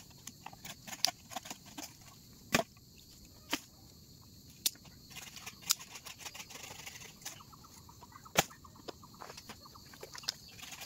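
Fire crackling, with sharp pops and snaps at irregular intervals; two louder cracks come about two and a half and eight seconds in.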